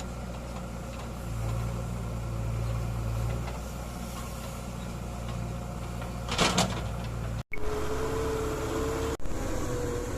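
Heavy diesel engine of construction machinery running steadily, with a brief loud noise about six and a half seconds in. After a sudden break near seven and a half seconds, a steady whine rides over the engine sound.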